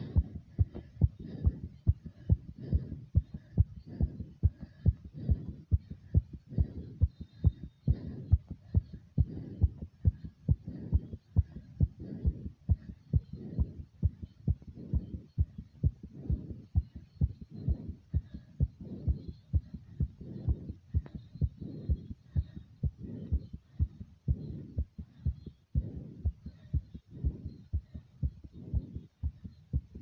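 A person's heartbeat picked up by a phone held against the chest, beating hard and fast after vigorous exercise: a steady, even run of deep thumps, faint breathing behind them.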